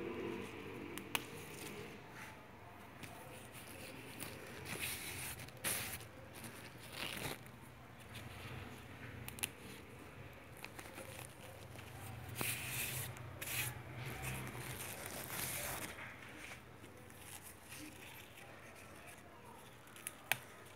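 Faint, irregular rustling and scraping, with a few sharp clicks, over a low steady hum: the handling noise of a hand-held phone being moved around planters.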